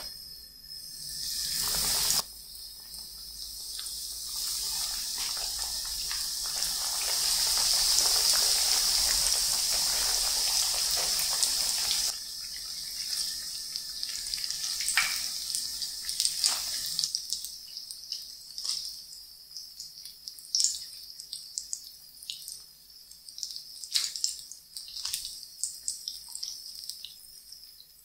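Breaded bread pocket pies deep-frying in a pan of cooking oil: a loud hissing sizzle as they go into the oil, which drops suddenly to a quieter bubbling crackle about halfway through, with scattered sharp pops and clicks.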